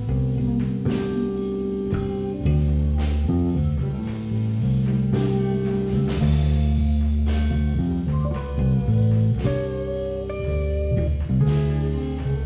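Instrumental rock jam: electric guitar and bass holding and changing notes over drum hits about twice a second.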